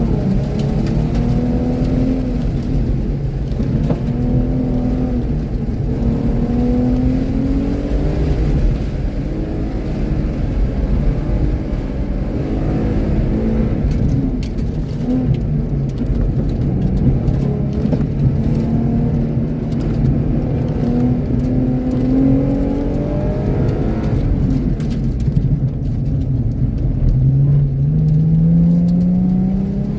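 2013 Ford Mustang's 3.7-litre V6, heard from inside the cabin, driven hard through a cone course: it revs up and eases off again and again in first and second gear, reaching near 6,000 rpm, and pulls up steadily again near the end.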